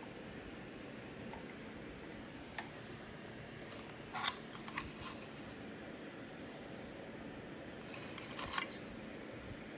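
Faint steady room hum with scattered light clicks and rattles of small hard objects being handled: one click a few seconds in, a short cluster in the middle, and another cluster near the end.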